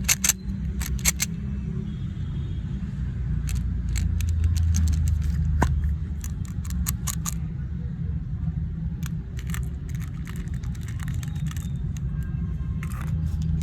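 A steady low rumble with many small sharp clicks and rattles scattered through it, in clusters, the rumble swelling for a couple of seconds about four seconds in.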